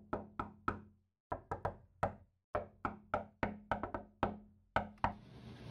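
Intro jingle made of short, sharp knocking hits in a quick rhythm, in phrases broken by brief silences. Near the end the hits stop and a steady kitchen room noise comes in.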